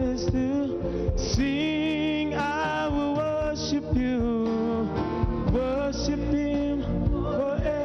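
Worship music with singing: a voice holding long, gliding notes over instrumental accompaniment.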